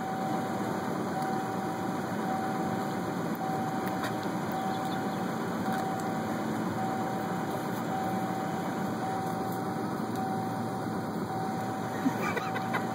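Pickup truck engine idling steadily, with a faint steady high tone running over it.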